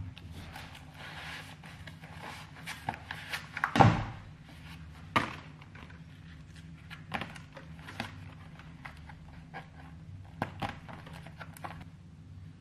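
Scattered knocks and thuds of kitchen things being handled and set down on a counter, the loudest about four seconds in, over a steady low hum.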